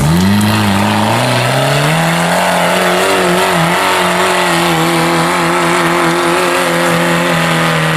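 Competition off-road 4x4's engine revving up over about the first two seconds, then held at high revs under load while climbing a steep slope, its pitch wavering slightly.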